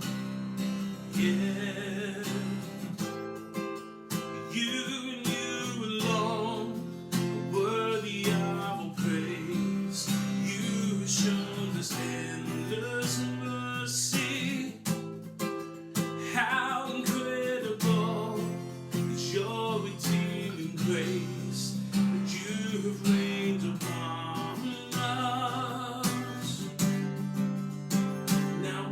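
Music led by a strummed acoustic guitar, with a melody line over it.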